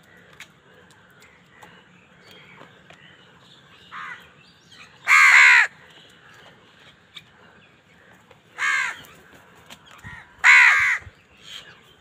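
House crows cawing: three loud, harsh caws about five, eight and a half, and ten and a half seconds in, with a couple of fainter calls between.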